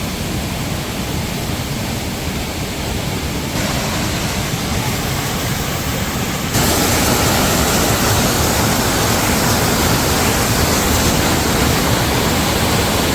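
Rhine Falls waterfall: a loud, steady rush of water, stepping up in loudness about six and a half seconds in.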